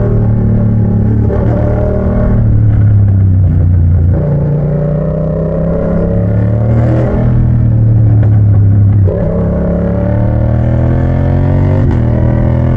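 Yamaha MT-07 parallel-twin engine through a straight-pipe exhaust, run loud under hard acceleration. Its pitch climbs, then drops sharply several times as the bike shifts up through the gears.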